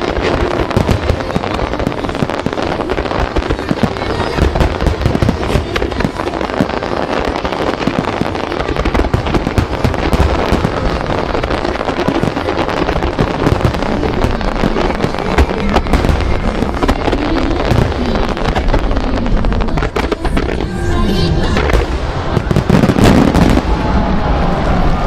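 Starmine fireworks barrage: shells bursting in rapid, overlapping bangs and crackles, with loud music played along with them over the show's speakers.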